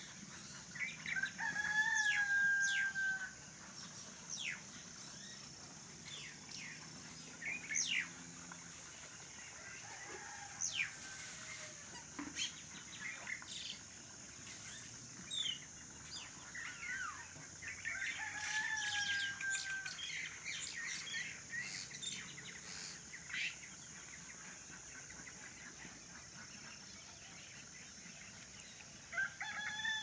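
A rooster crowing three times, near the start, around the middle and at the end, each crow ending in a long, slightly falling note. Between the crows, small birds give short, sharp chirps over a steady high-pitched hiss.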